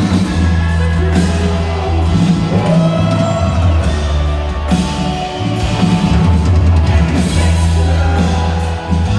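Live rock band playing over a concert PA: drum kit, bass and guitar in a steady groove, with a deep bass line changing notes every second or so.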